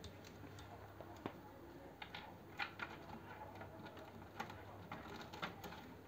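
Faint, scattered light clicks and rustles from hands handling the 3D printer's cables and wiring, about seven small clicks spread across a few seconds.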